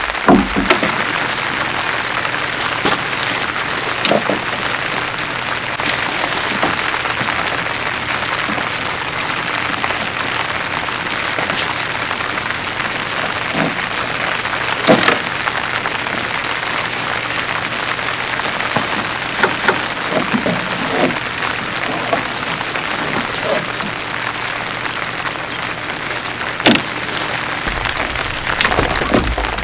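Steady rain falling, with a few sharp clicks and knocks scattered through it as tent poles and the tent are handled.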